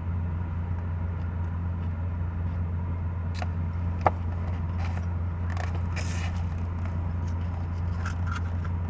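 Car air conditioning running: a steady low hum. A few light clicks and scrapes sit on top of it, the sharpest about four seconds in.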